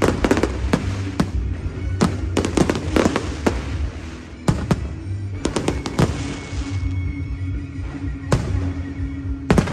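Aerial fireworks bursting in irregular clusters of sharp bangs and crackles, with a short lull about four seconds in, over steady music.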